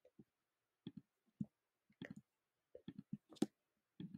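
Scattered soft clicks and taps from working a computer, about a dozen short, irregular ones, with dead silence between them.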